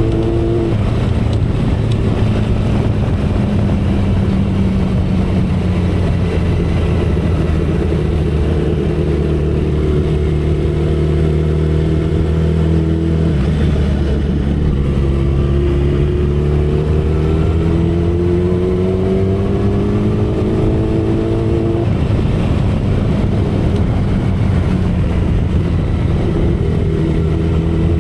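2012 Kawasaki Ninja ZX-10R inline-four engine and exhaust at expressway speed, heard from the saddle. Engine pitch sags slowly while easing off, then climbs under throttle. About 22 seconds in it drops suddenly and climbs again, a gear change. Wind and road noise run underneath.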